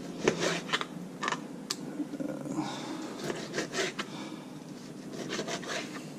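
Chef's knife dicing a raw mango snapper fillet on a plastic cutting board: a dozen or so irregular taps and scrapes as the blade goes through the flesh and meets the board.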